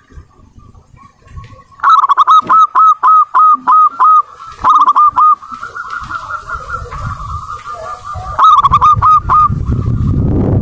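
Zebra dove (perkutut) cooing in three runs of quick, repeated hooked notes: a long run of about four notes a second starting about two seconds in, a short faster run around five seconds, and another near nine seconds. A low rumble builds through the second half.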